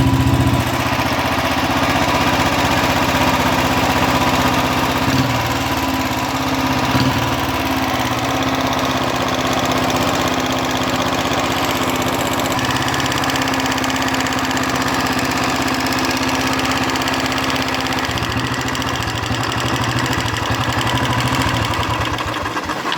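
Royal Enfield Electra 350 single-cylinder four-stroke engine idling steadily. It is being run to check that oil now reaches the tappets after their blocked oil holes were cleaned, as a fix for a tapping noise. The engine stops just before the end.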